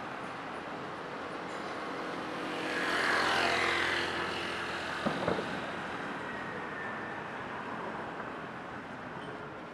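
Urban traffic ambience: a steady hiss of road noise, with a vehicle passing about three seconds in and a short knock about five seconds in.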